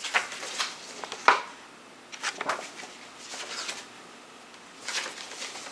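Paper and card rustling as a CD's fold-out booklet is handled and leafed through: a run of short rustles with one sharper click about a second in.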